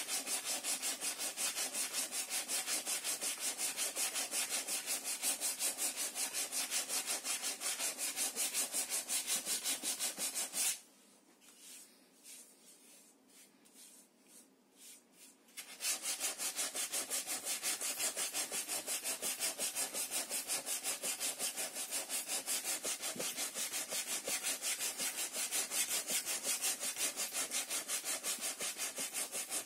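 Sandpaper rubbing over the wooden planked hull of a model ship in quick, even back-and-forth strokes. It stops for about five seconds in the middle, leaving only a faint rustle as a hand feels the surface, then resumes.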